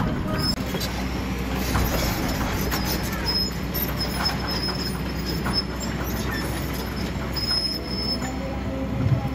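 Kobelco SK200 hydraulic excavator at work: its diesel engine runs steadily under load, with scattered metallic clanks and brief high-pitched squeaks from the machine's moving steel parts.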